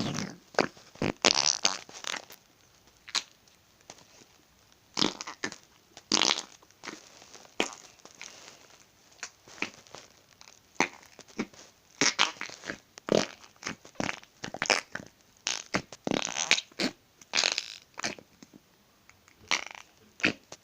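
Slime squeezed and pressed by hand, letting out many short fart-like squelching pops at irregular intervals.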